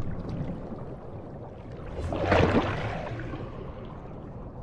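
Underwater ambience: a steady low rumble and water noise, with a rushing swell that builds and peaks about two and a half seconds in, then eases off.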